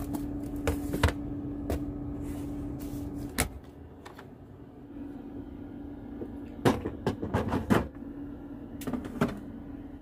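Plastic food-storage containers and their lids knocking and clattering as leftovers are handled and set onto refrigerator shelves, with a refrigerator door opened. A dozen or so sharp knocks and clicks, most of them near the end, sit over a steady low hum.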